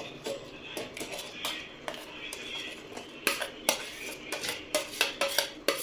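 A spoon repeatedly clinking and scraping against a cooking vessel in irregular knocks while homemade butter separated from churned cream is scooped out.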